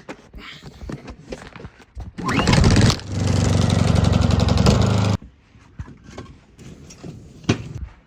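A gasoline engine starting: a loud rough burst as it cranks and catches, then running steadily for about two seconds before it cuts off abruptly. A few faint clicks and one sharp knock follow near the end.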